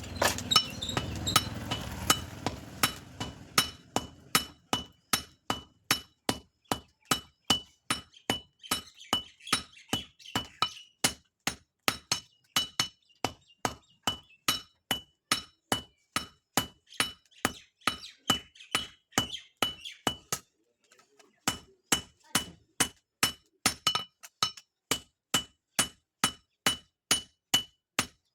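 Blacksmith's hand hammer striking metal on an anvil while forging a khurpi blade: an even run of blows, about two or three a second, each with a ringing clink. The hammering pauses briefly about two-thirds of the way through.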